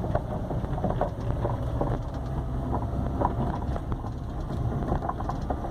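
Inside a Peugeot 307's cabin while driving over a rough, potholed street: steady road rumble with repeated loose knocks and rattles from the front suspension, which feel as if something is loose inside the car. The knocking comes from a burst upper strut mount and bump stop, with worn stabilizer links as well.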